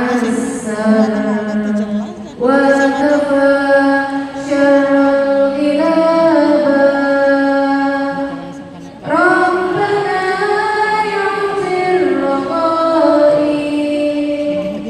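A woman singing long, ornamented held notes in three phrases, with short breaths about two seconds in and again about nine seconds in.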